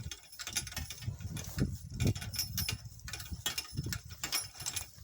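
Donkey-drawn cart on the move: irregular rattling and jingling of harness and cart hardware, with a few low thuds.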